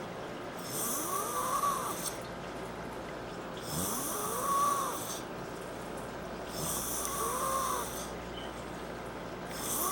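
A woman snoring in deep sleep: three drawn-out snores about three seconds apart, each with a whistling tone that rises in pitch and then levels off, and a fourth starting near the end.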